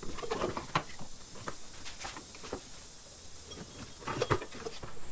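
Scattered light clicks and rustling from hands working on parts up inside a car's wheel well, a few louder clicks about four seconds in.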